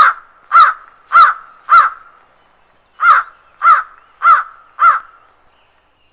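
A crow cawing: two series of four harsh caws, about half a second apart, with a short pause between the series.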